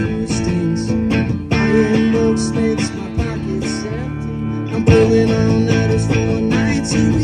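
Live band playing a song, with strummed acoustic guitar to the fore and a melody line moving over it.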